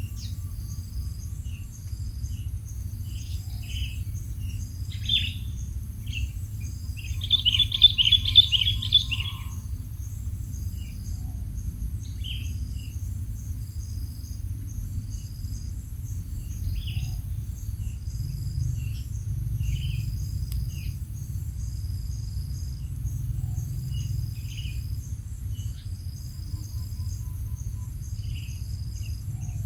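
Quail giving short chirps now and then, with a louder run of rapid chirps about eight seconds in, over a steady high insect trill and a low rumble.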